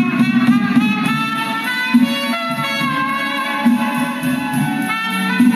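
Music from a vinyl LP playing at 33 1/3 rpm on a Fisher C-20 record changer built by BSR, heard over the speakers: a melody of held notes over a steady low accompaniment, at an even level.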